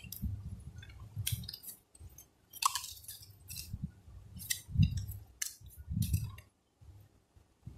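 Cardboard phone-box packaging being handled: scattered rustles, scrapes and light knocks of card, with several sharper clicks.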